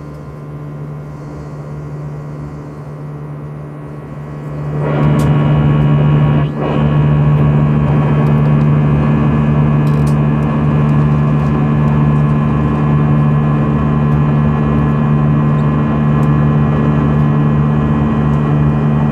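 Airbus A320 jet engine heard from inside the cabin in flight: a steady drone with a deep hum and several steady higher tones. It is duller and quieter for the first five seconds or so, then comes back full.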